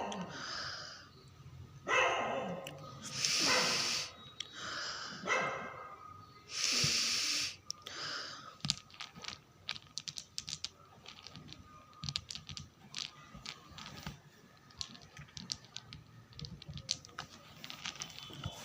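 Several loud, deep sniffs close to the microphone as mothballs are smelled. From about eight seconds in, they give way to a run of quick, light clicks and rattles of mothballs and their packaging being handled.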